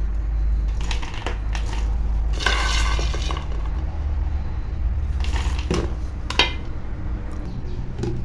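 Roasted peanuts rattling and clattering into a plastic tub in a few short spells, the longest about two and a half seconds in, over a low steady rumble.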